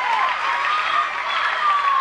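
A crowd applauding, a dense patter of many hands clapping. Long high tones that slide down at their ends run over the clapping.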